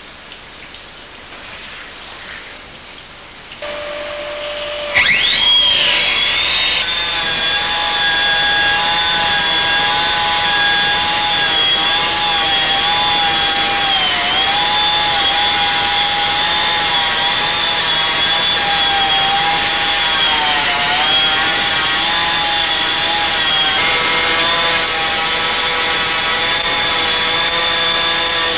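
GALAXY hydraulic stone-cutting machine starting up. A low hum comes in, then about five seconds in a rising whine as the cutter runs up to speed. It runs on as a loud, steady high whine whose pitch dips briefly twice.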